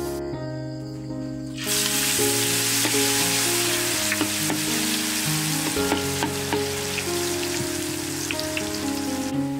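Batter fritter deep-frying in a wok of hot oil: a loud, dense sizzle that starts about two seconds in, with scattered sharp pops. Soft background music plays throughout.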